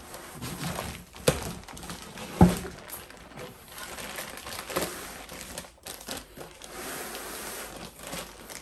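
Plastic wrapping crinkling and rustling as hands grip and turn the wrapped inverter in its box, with two sharp knocks, the louder one about two and a half seconds in.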